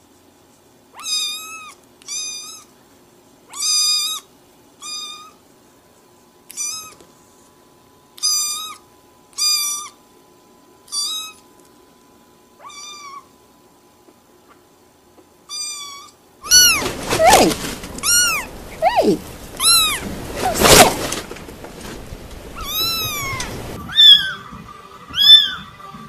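Kittens meowing: a young kitten gives a string of short, high-pitched mews, about one a second. About 16 seconds in, after a cut, louder meows come over a background hiss, and near the end another kitten mews.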